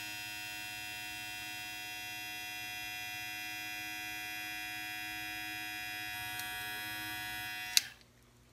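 Omorc professional dog grooming clippers with a 24-volt motor, running with a steady, even hum, then switched off with a click near the end.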